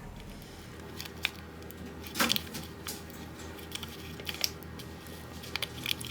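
Scattered small clicks and taps of tools and phone parts being handled during a phone repair. The loudest comes about two seconds in, with a few more near the end, over a steady low hum.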